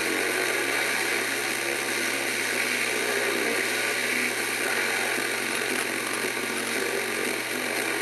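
Steady hiss of radio static (white noise) from a Sony portable CD/cassette radio.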